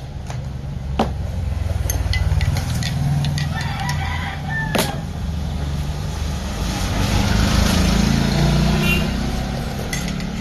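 A rooster crowing over a steady low engine rumble, with sharp clinks of a metal spoon against a ceramic mug about a second in and again near the middle.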